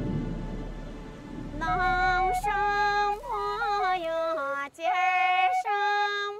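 A woman singing a Chinese folk song in a high, bright voice: long held notes joined by short slides, coming in about a second and a half in after a low music drone fades out.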